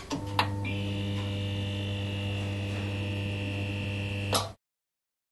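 Logo intro sting: a few sharp synthetic hits, then a steady electronic drone of held tones over a deep low hum with a bright high ringing layer. A last whoosh-hit comes about four seconds in, and the drone cuts off suddenly.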